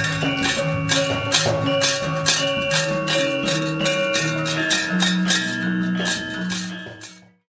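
Central Javanese gamelan ensemble playing: metallophones and gongs sound a melody of held, changing notes over a steady beat of sharp strokes, about three a second. The music fades out about seven seconds in.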